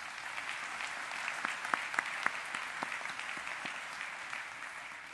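Audience applauding: many hands clapping in a dense patter that tapers off near the end.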